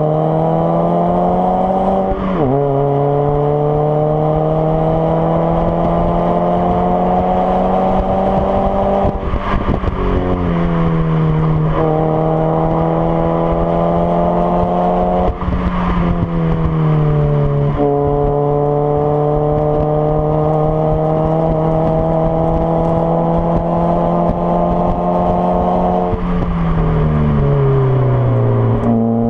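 Hyundai Avante AD (Elantra) 1.6 petrol four-cylinder running through a custom dual exhaust under steady load, its pitch climbing slowly and then dropping sharply several times, as at gear changes in the manual gearbox.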